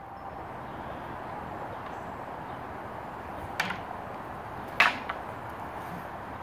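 Wooden long poles knocking together in Wing Chun pole sparring: a sharp clack about three and a half seconds in, a louder one just over a second later, then a faint third, over a steady background hiss.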